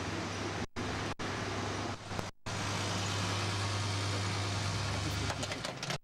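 Steady hum of a fuel dispenser's pump running while diesel is pumped into a car, broken by a few brief dropouts in the audio. The hum fades out a little after five seconds in, followed by a few light clicks.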